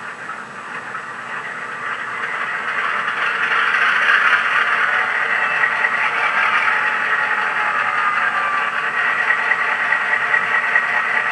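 Model locomotive sound decoder playing a diesel engine sound through the model's small speaker. The engine starts up, grows louder over the first few seconds, then settles into a steady idle.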